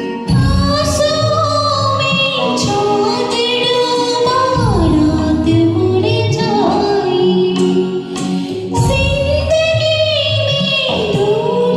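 A woman singing a Hindi film song in long, gliding held notes over a recorded instrumental backing track.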